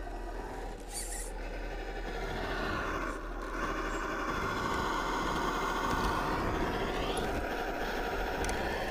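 Sound module of a 1:10 Reely FreeMen RC crawler playing a simulated engine sound as the crawler drives: the engine note rises about two to three seconds in, holds at its loudest, then falls away near the end.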